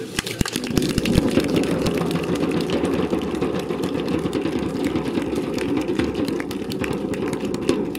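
Crowd applauding at the end of a speech: a dense, steady clatter of many hands clapping.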